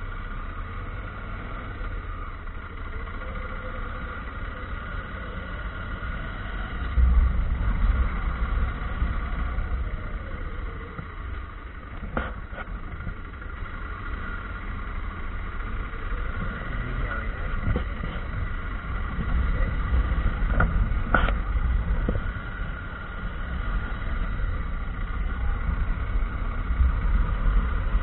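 Motorcycle engine running as the bike is ridden uphill over cobblestones, with a heavy low rumble that rises and falls over the stretch. A few brief clicks come in the second half.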